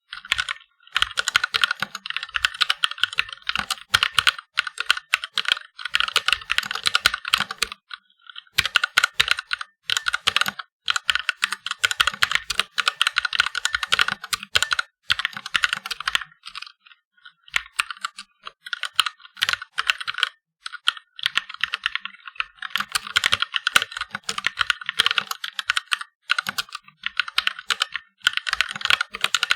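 Fast touch typing on a mechanical keyboard with red (linear) switches: dense runs of rapid keystrokes, broken by brief pauses every few seconds.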